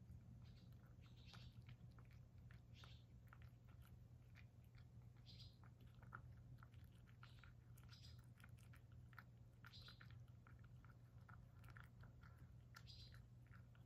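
A cat chewing and eating soft carrot dressed with bonito flakes from a ceramic bowl: faint, irregular small clicks and wet mouth smacks.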